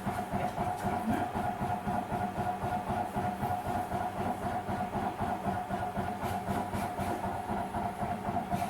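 Pegaso cough-assist machine running in percussion mode, its percussor sending rapid air pulses: a fast, even chatter over a constant hum.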